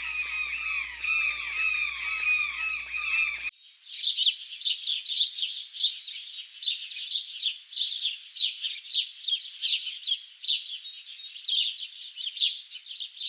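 Birds calling. First comes a dense chorus of repeated falling squawking calls, which cuts off abruptly about three and a half seconds in. Then comes rapid, high-pitched chirping, several chirps a second.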